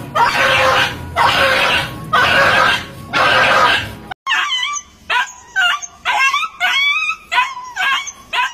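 A dog fight: harsh, noisy bursts about once a second, then after a cut about four seconds in, a dog yelping and whimpering in repeated short, rising-and-falling cries.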